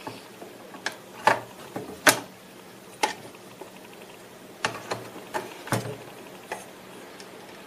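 Irregular clicks and knocks of hard plastic being handled: an instrument cluster housing shifted on a workbench and a round gauge pushed into its speedometer opening.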